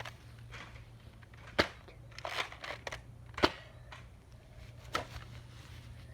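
Sharp clicks or snaps: two loud ones about two seconds apart and a softer one near the end, with lighter clicking and rustling between, over a steady low hum.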